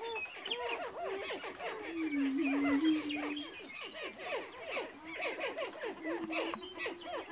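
Display chorus of male prairie chickens: many quick rising-and-falling whooping and cackling calls, with a low steady hooting tone held about a second and a half from about two seconds in, and again briefly near the end.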